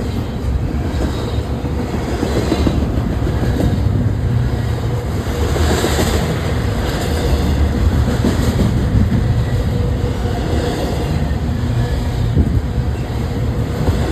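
Freight train of container cars rolling past: a steady rumble of steel wheels on the rails, with clacking over the rail joints.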